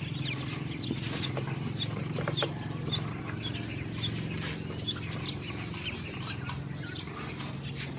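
Ducklings peeping: short high chirps repeating about twice a second, over a steady low hum.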